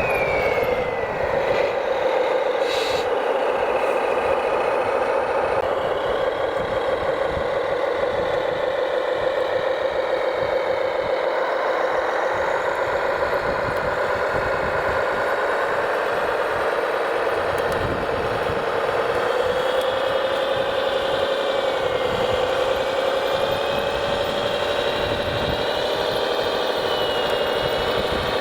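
Radio-controlled scale construction machines running: a steady mechanical whine that wavers a little in pitch, with a high tone gliding down at the start.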